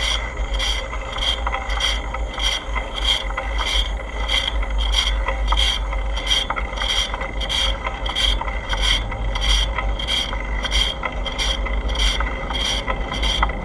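Bicycle being ridden, with a mechanical click repeating about three times a second, over wind rumble on the microphone.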